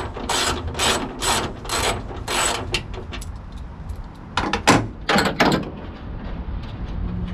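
Ratchet wrench clicking in quick, even strokes, about two a second, on a 12 mm nut at the hood hinge; the strokes stop after about two and a half seconds. A few louder clicks and knocks follow about four and a half seconds in as the tool is handled.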